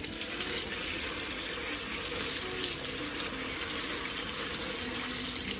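Water poured in a steady stream from a jug into a potted orchid, splashing onto the bark substrate and leaves.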